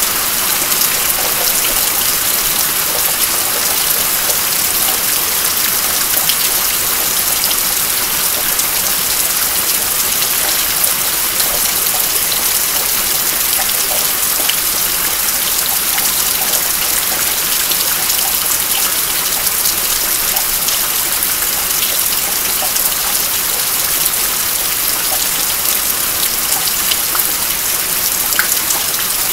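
Steady rain falling, with water dripping off the roof eave: an even hiss with scattered drop taps.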